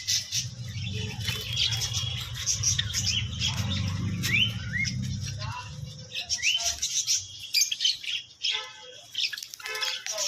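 Many small cage birds chirping and calling together in quick, overlapping twitters, with a few short rising whistles. A low steady hum runs underneath and stops about halfway through.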